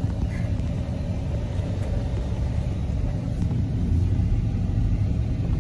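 A car driving along the road: a steady low rumble of road and engine noise.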